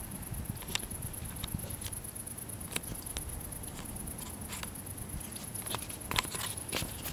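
Scattered irregular taps and clicks, with several close together about six seconds in, over a low rumbling background noise.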